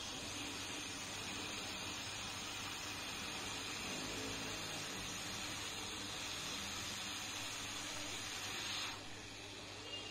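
Hot-air rework station blowing a steady hiss of hot air onto a phone motherboard to melt the solder under the network IC so it can be lifted off. The hiss drops away about nine seconds in as the nozzle is pulled back.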